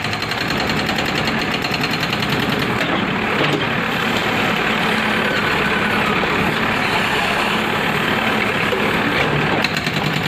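Excavator-mounted hydraulic rock breaker demolishing a brick wall: the excavator's diesel engine runs steadily under load, with rapid hammering of the breaker chisel in the first second or so and again near the end.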